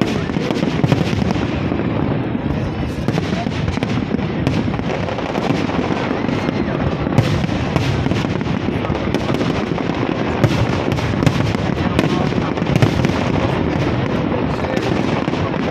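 Aerial fireworks display: a dense, continuous barrage of bangs and crackling shells, with sharper individual bangs standing out now and then.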